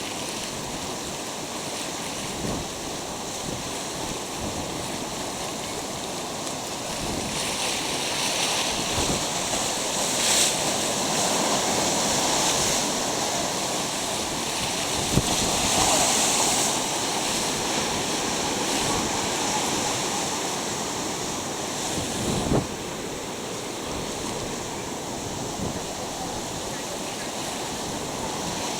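Ocean surf washing and breaking on the shore, growing louder through the middle. Strong wind buffets the microphone with a few short low thumps.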